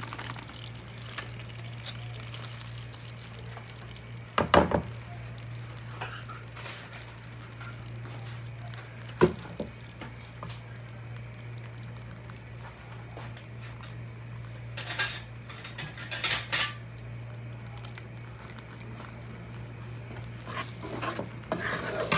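Metal kitchen utensils knocking and clinking against a karahi: sharp knocks about four and nine seconds in, a cluster of clinks around fifteen seconds, and scraping near the end. A steady low hum runs underneath.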